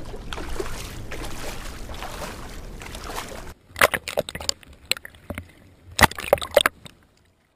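Steady rush of wind and water in shallow sea, then from about three and a half seconds in, the sound from a camera at the waterline: muffled underwater gurgling broken by several sharp splashes as a swimmer in a life jacket strokes through the water.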